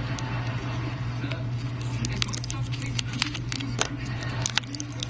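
Clear plastic film crinkling and clicking under fingers as a phone's glass screen wrapped in it is pressed and handled, in many short sharp clicks that grow denser after the first second or so. A steady low hum runs underneath.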